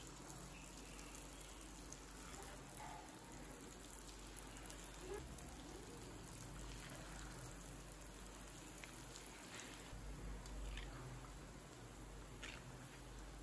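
Deep-frying oil sizzling faintly around balls of idli-batter bonda dough, with a few scattered crackles, mostly in the second half.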